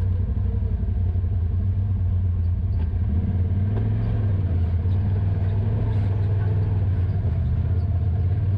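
Side-by-side UTV engine running steadily on a trail: a low drone that shifts slightly in pitch, with light clatter over it.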